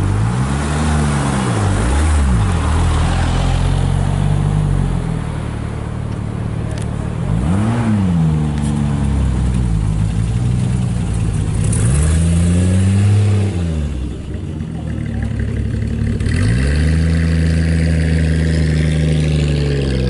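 A car engine being revved over a steady idle: its pitch climbs and falls back several times.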